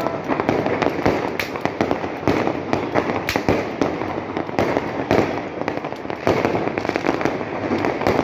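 Fireworks going off in a dense, continuous barrage, a rapid run of cracks and bangs over a steady rumble, with sharper reports standing out every second or so.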